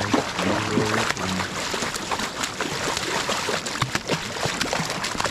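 Water splashing and sloshing in quick irregular slaps over a steady rush of river: a hooked coho salmon thrashing in the shallows as it is grabbed by the tail.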